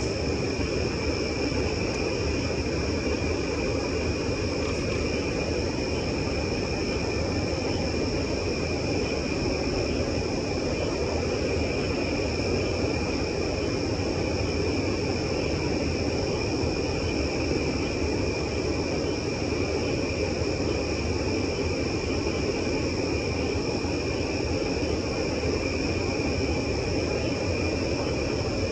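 A steady chorus of night insects, a constant high trilling, over a continuous low rumble.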